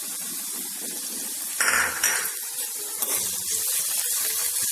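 Chopped onion and tomato sizzling in hot oil in a pan, with a utensil clattering against the pan twice about one and a half to two seconds in and a lighter tap about a second later.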